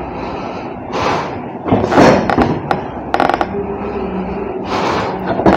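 A few dull thumps and two short runs of sharp clicks during a chiropractic lower-back adjustment.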